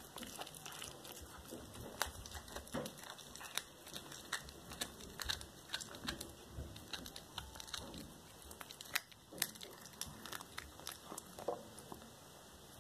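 A cat chewing on a whole raw rat: irregular crunches and small sharp clicks, easing off near the end.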